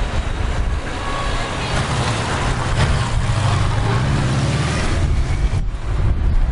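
Cars driving past one after another on a road, tyre noise and engine hum. A low engine hum builds through the middle and fades about five seconds in as a car goes by.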